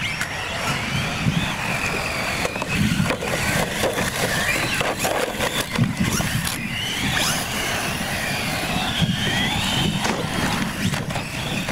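Radio-controlled UTV trucks racing over loose gravel: their motors whine, rising and falling in pitch as they accelerate and back off, with tyres scattering gravel and sharp knocks from jumps, landings and cars hitting each other.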